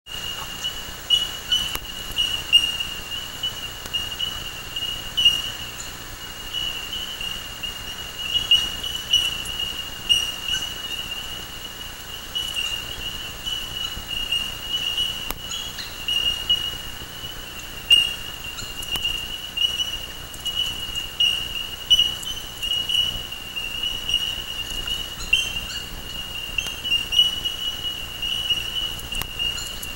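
Outdoor field ambience: a steady, high-pitched drone that swells and fades slightly, with frequent short clicks and faint chirps scattered through it.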